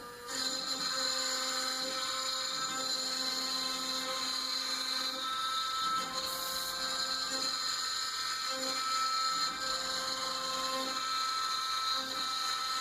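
CNC router spindle running with a steady high-pitched whine that starts abruptly, while lower motor tones come and go underneath.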